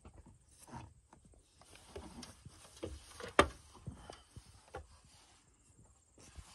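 Scattered knocks and taps of wooden yurt rafters and tools being handled on the frame, with one sharp knock about three and a half seconds in.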